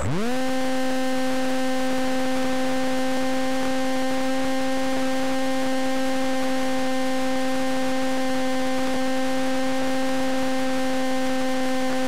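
RC model airplane's electric motor and propeller, heard through the plane's onboard camera, spinning up from silence to full throttle within a fraction of a second at the start and then holding a steady whine through the takeoff run and climb.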